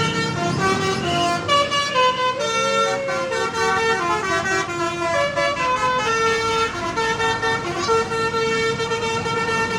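Telolet horn, a multi-tone musical vehicle horn, playing a tune in quick stepped notes with several tones sounding together; over the last few seconds it sounds the same note again and again.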